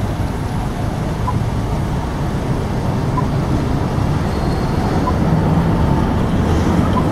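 City street traffic noise, a steady low rumble of idling and moving vehicles as a low-floor electric tram rolls slowly through the intersection. A faint short pip repeats about every two seconds.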